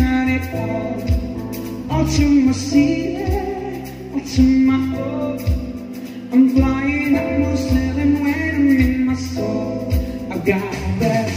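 Live band playing a pop song: a singer over drum kit, keyboard and electric guitar, with a steady drum beat.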